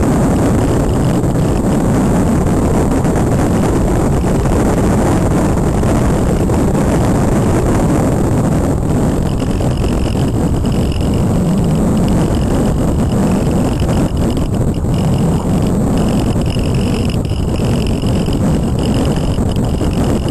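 Wind rushing over the onboard camera's microphone on a Multiplex Cularis model aircraft in flight. About nine seconds in, a steady high whine joins the wind noise.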